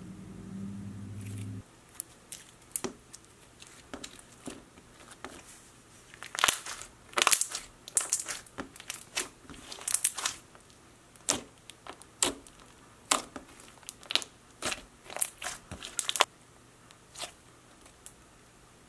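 Clear putty-textured slime with hollow butterfly glitter being stretched, pressed and squeezed by hand, giving irregular sharp clicks and crackles that are densest and loudest in the middle.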